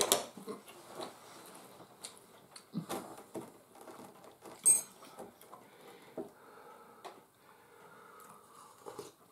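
Quiet eating and drinking at a table: sips from mugs and scattered clicks of cutlery and dishes, with one sharper, brighter sound a little under five seconds in.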